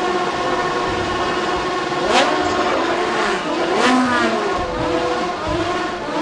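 Top Race V6 race car's V6 engine doing a burnout: held at high revs with the tyres spinning, then from about two seconds in revved sharply up and down several times.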